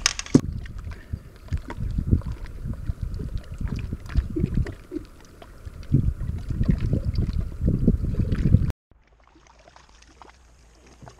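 Gusty, irregular low rumbling with knocks from wind and handling on the microphone. It cuts off abruptly about nine seconds in to a much quieter stretch with faint ticks and a low steady hum.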